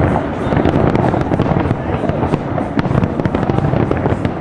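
Fireworks display heard from a distance: a dense, continuous barrage of crackling and popping shell bursts over a low rumble of booms.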